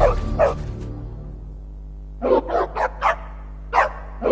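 Music fades out in the first second, under two short barks. From about two seconds in, a dog barks repeatedly in quick runs of about four barks a second.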